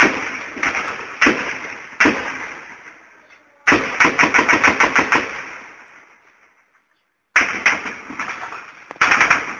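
Heavy gunfire: several single shots, then a burst of automatic fire at about seven rounds a second around four seconds in, and more shots near the end, each trailing off in a long echo.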